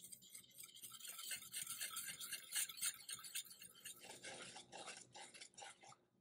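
Wire whisk mixing cocoa powder and flour into wet batter in a glass bowl. First comes a fast, scratchy rasping of the dry powder being worked in. From about four seconds in it changes to softer, separate strokes at about four or five a second in the smooth batter, and it stops near the end.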